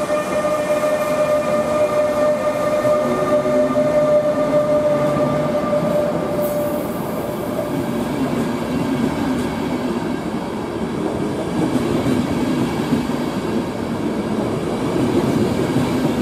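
ÖBB class 1116 Taurus electric locomotive and its double-deck coaches rolling slowly past. A steady electrical whine from the locomotive fades out about seven seconds in, leaving the continuous wheel-and-rail rumble of the coaches.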